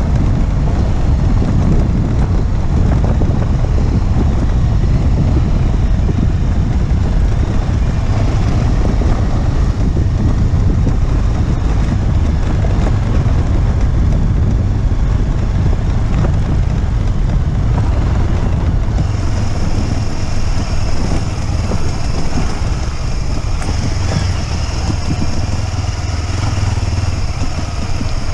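Motorcycle engine running steadily as the bike rides along, heard from the onboard camera. A steady high hiss joins about two-thirds of the way in.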